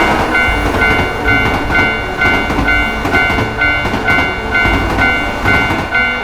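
Japanese level-crossing bell ringing its two alternating tones, about two strokes a second, over the rumble and rhythmic clatter of a passing train.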